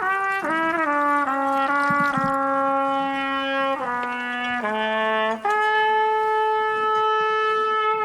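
A trumpet-like brass instrument, the troupe's home-made 'amphibious trumpet', playing a slow melody of held notes that steps downward in pitch, then rises to one long held note about halfway through.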